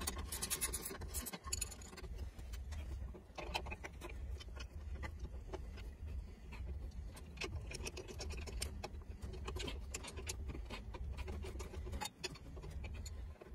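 Steel wrenches clicking and clinking against the bolts and nuts of a cast-iron pump flange as they are worked loose, in scattered small irregular clicks over a low steady hum.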